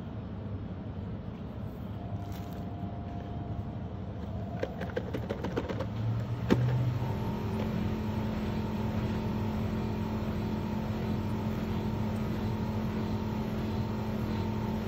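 A steady low motor-like hum, which settles into a steady pitched drone about seven seconds in. Over it, packaging is handled: a run of quick crinkles and clicks around five to six seconds in, ending in a single knock.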